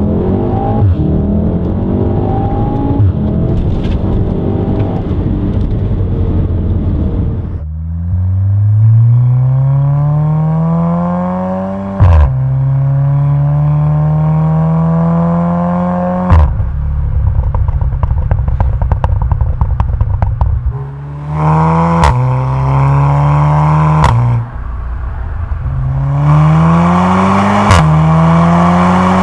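Volkswagen Golf R's turbocharged four-cylinder engine through a QuickSilver sport exhaust in Race mode, accelerating hard up through the gears. The pitch climbs in each gear and breaks with a sharp crack at each upshift, about five times. In the middle there is a few-second run of crackling.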